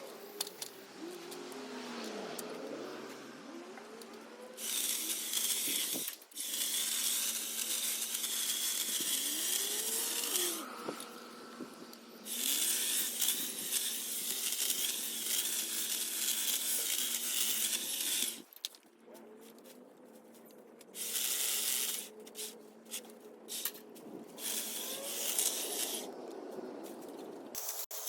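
Battery-powered Ego multi tool with its hedge trimmer attachment running in bursts of a few seconds with a steady high whine, starting and stopping repeatedly while trimming a hedge.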